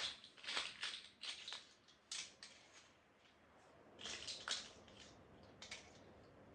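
Plastic Lego bricks being handled and pressed together: faint clusters of small clicks and rattles, busiest in the first second and a half and again about four seconds in.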